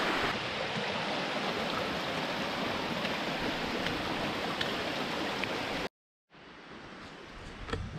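Rushing water from the waterfall's cascading stream, a steady, even rush. It cuts off abruptly about six seconds in and gives way to a much quieter outdoor background with a few faint taps.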